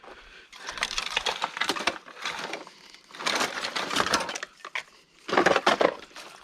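Scrap motor parts clattering and scraping as a pile of scrap is picked through and shifted, in three bouts of dense rattling.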